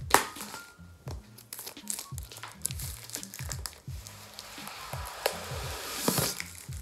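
Plastic shrink wrap being peeled off a cardboard product box, crinkling and crackling, with a loud crackle right at the start and a dense stretch of crinkling near the end. Background music with a steady beat plays underneath.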